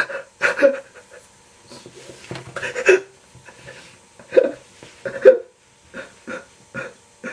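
A man sobbing in short, jerky gasping breaths, with a few louder sobs in the middle and a run of quicker gasps near the end.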